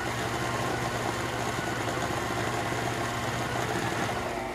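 Electric router running steadily at high speed, about 7,000 RPM, belt-driving a kart water pump on a test rig: a steady motor hum with a whir over it. On this run the router overheated and sparked at its brushes, which were badly chipped.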